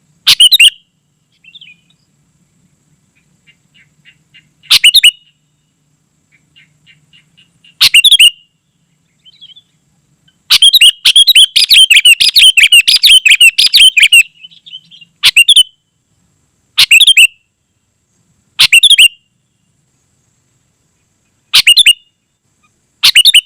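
Sooty-headed bulbul singing: short, loud, bubbling phrases every few seconds, a long fast run of notes in the middle, another run starting near the end, and faint soft chips in between.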